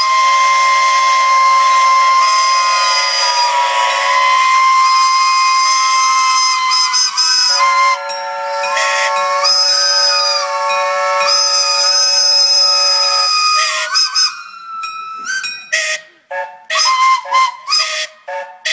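Several steam engine whistles blowing together, their different pitches overlapping into a loud chord over a hiss of steam, with some tones bending in pitch. Near the end some whistles drop out and the rest break into short, quick toots.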